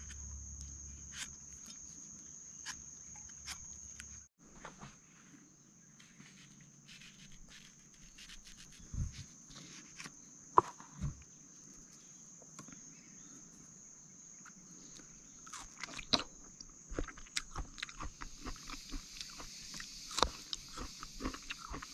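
A large knife cutting and peeling the skin off a ripe mango, in small scrapes and clicks, then wet biting and chewing of the fruit, busier over the last few seconds. A steady high insect drone runs underneath.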